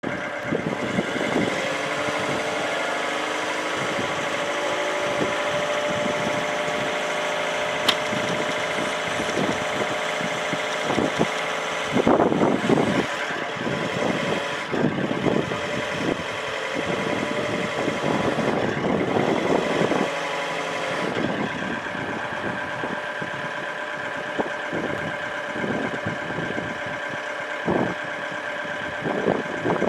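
Linde H45D diesel forklift running, its engine and hydraulics giving a steady machine sound with several whining tones while the mast raises and lowers the forks. Irregular knocks and clatter come in, most of them in the middle stretch.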